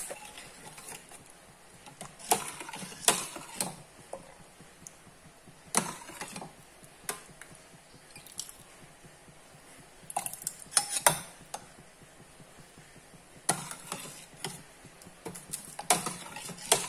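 Steel spoon stirring thick porridge in a steel pot, clinking and scraping against the pot's sides in scattered bursts of clicks and knocks.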